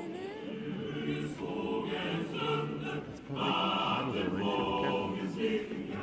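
A choir singing, loudest in the second half.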